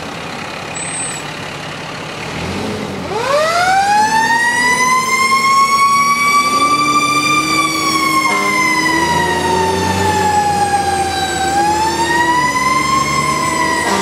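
Fire engine pulling away with its engine running; about three seconds in its siren winds up steeply to a high pitch, holds, slowly sinks, then rises once more near the end and falls again.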